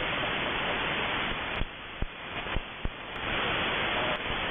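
Radio static hiss from an Airspy software-defined radio receiver on a military UHF air-band channel between transmissions. The hiss drops back twice for a second or so around the middle, with a few sharp clicks.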